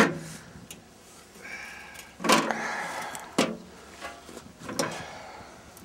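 Sheet-metal furnace blower housing being handled: a sharp knock at the start, then a scraping clatter a little over two seconds in that ends in another knock, and a smaller knock near the end.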